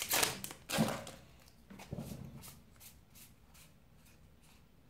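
Foil booster-pack wrapper crinkling as it is torn open, with a few sharp crackles in the first second or two. Then faint rustling of trading cards being handled.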